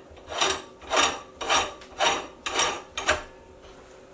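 Metal collar ring being screwed onto the head of an LEM Big Bite #8 meat grinder, its threads rasping in about six turns, one every half second, stopping about three seconds in.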